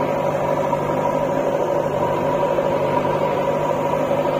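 JCB 3DX backhoe loader's diesel engine running steadily as its backhoe arm digs, with a steady high whine over the engine drone.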